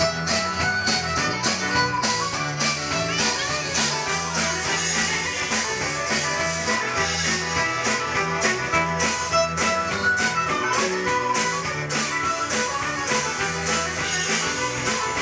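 Live folk band playing an instrumental introduction with a steady beat, before the singing comes in.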